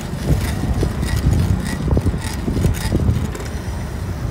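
Wind buffeting the microphone and tyres rumbling on asphalt as a mountain bike is ridden along the road.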